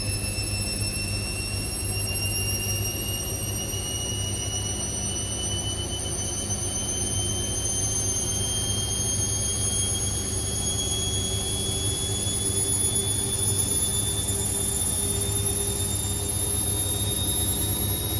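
Indesit IWC6165 washing machine's motor spinning up the drum, a high-pitched whine rising slowly and steadily in pitch over a steady low hum: the machine is ramping up its spin speed.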